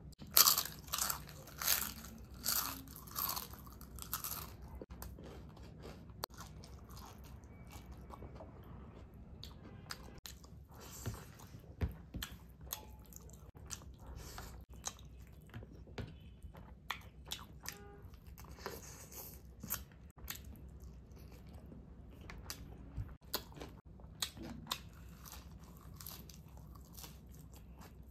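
A person chewing crunchy food. A run of loud crunches, about two a second, comes in the first four seconds or so, then quieter chewing with scattered mouth clicks.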